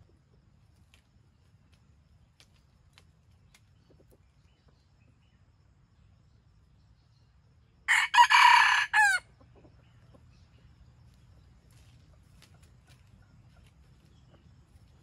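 A junglefowl rooster crows once about halfway through: one short, loud crow of just over a second, broken into a few parts. Otherwise only a faint low rumble.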